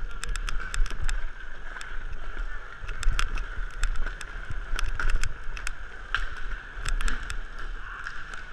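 Inline skate wheels rolling over plastic sport-court tiles: a steady rolling whir broken by frequent irregular sharp clacks.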